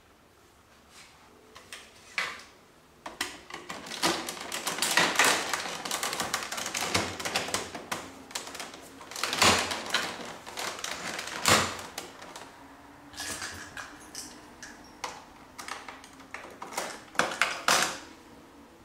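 Hands working at the plastic dash and centre console of a Honda Goldwing 1500 SE motorcycle: a clatter of clicks, rattles and scraping, with two sharper knocks near the middle.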